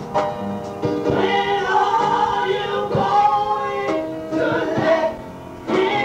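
A woman singing a gospel song in long held notes, with a short break a little after five seconds in.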